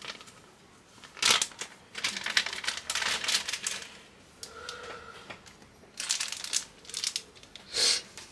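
Hands handling computer parts: irregular clicks and crinkling plastic rustles in several short bursts.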